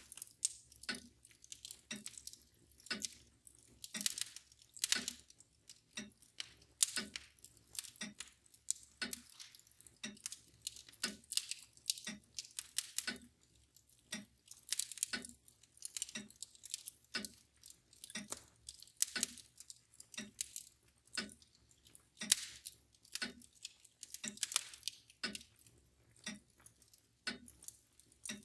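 Wood fire crackling and popping irregularly, with a mantel clock ticking steadily about once a second.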